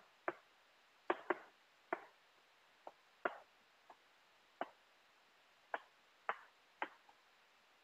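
Chalk tapping against a chalkboard as a sentence is written by hand: about a dozen short, sharp clicks at irregular intervals.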